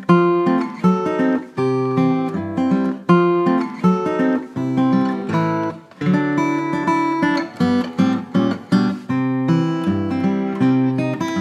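Background music: acoustic guitar playing plucked and strummed chords at a steady rhythm.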